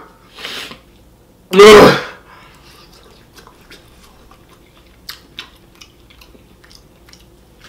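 A man gives one loud throat-clearing cough about one and a half seconds in, a reaction to the burn of extremely hot fried chicken. After it come faint chewing sounds and a few light clicks of a fork in a small bowl of greens.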